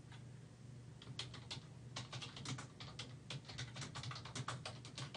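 Typing on a computer keyboard: a quick, irregular run of keystrokes starting about a second in.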